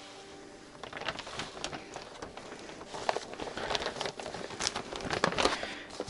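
Paper rustling and crinkling in irregular bursts as old photos and papers are handled, growing busier from about a second in.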